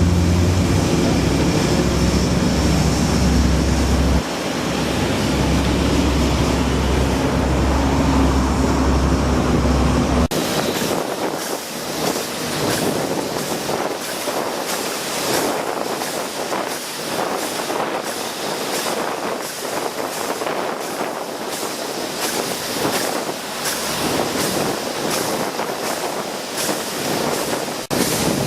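A motor vehicle or machine engine running with a low, steady rumble. It cuts off abruptly about ten seconds in, giving way to wind buffeting the microphone over a steady rush of outdoor noise.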